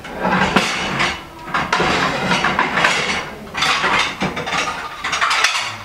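Dishes and pans clattering and clinking as they are shifted about inside a lower kitchen cupboard, in several bursts of rattling.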